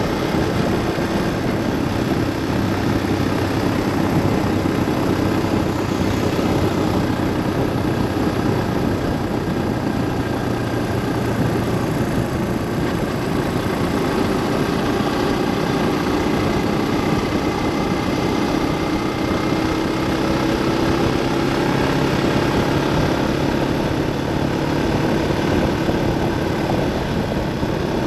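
A vehicle's engine and tyre noise while driving at a steady pace, a continuous hum whose pitch drifts gently up and down as the engine speed changes.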